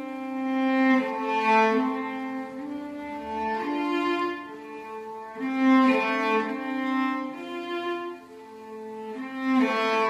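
Background music: a slow piece for bowed strings, with long held notes that change about once a second.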